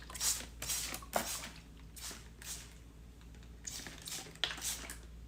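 Hand spray bottle squirting water onto clay to rehydrate it: a series of short hissing sprays, about seven of them, in small groups.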